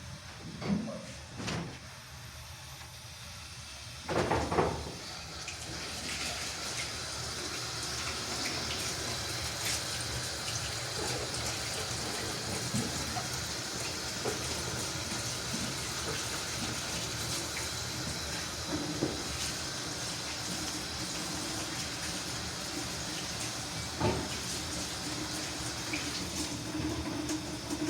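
Water running in a steady stream, with a few short knocks and clatters, one of them about four seconds in.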